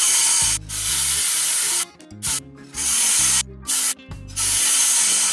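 Cordless circular saw cutting fiber cement siding board: a harsh, hissing cut in four loud bursts of about a second each, with short breaks between them.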